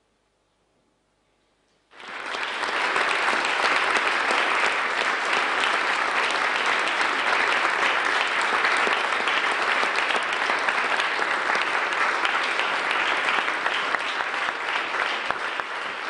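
Near silence, then about two seconds in an audience starts applauding, steady clapping from many hands.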